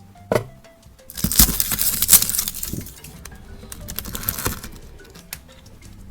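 Small plastic slime pot being handled and its lid pulled off: a sharp click, then a couple of seconds of loud scraping and rustling plastic, with a few more clicks, over soft background music.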